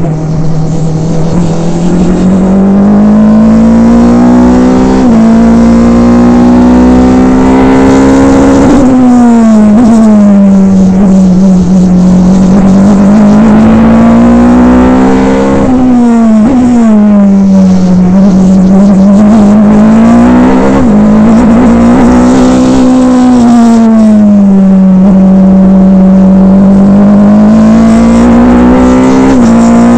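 Indy Lights race car's 3.5-litre Infiniti V8 heard from the cockpit at racing speed, its note rising under acceleration and falling away into the corners, broken several times by quick gear changes.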